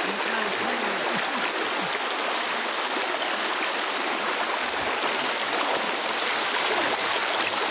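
Shallow river running over rocks, a steady rushing and burbling of water.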